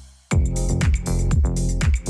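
Electronic dance background music: a brief drop to near silence, then a steady four-on-the-floor beat with synth chords kicks back in about a third of a second in.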